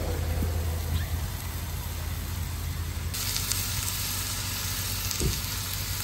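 Ribeye steak sizzling on a ridged grill plate, with a steady low hum underneath; about three seconds in, the sizzle turns louder and sharper.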